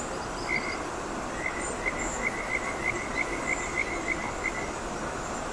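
Steady rush of a shallow, fast mountain river flowing over stones, with a run of short, high chirps from a small animal, about five a second, in the middle.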